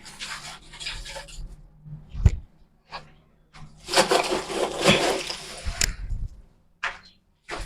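Sawdust or wood shavings and charcoal being stirred and tossed together: rustling, scraping noise in bursts, loudest for about two seconds in the middle, with one sharp knock about two seconds in.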